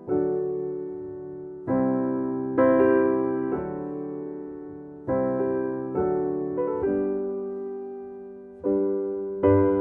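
Piano playing slow chords, each struck and left to ring out and fade before the next.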